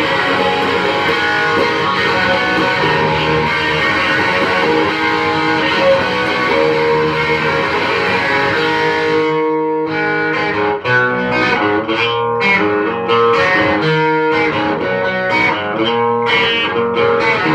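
Electric guitar with a dual hot-rail ceramic humbucker pickup, played through an amp with some distortion. It is strummed steadily for about the first half, then moves to separately picked chords and single notes with short breaks between them.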